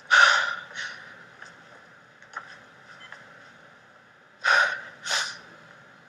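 A man's sharp, ragged breaths, a gasp followed by a shorter breath at the start and two more about four and a half seconds in, over a faint steady background hum.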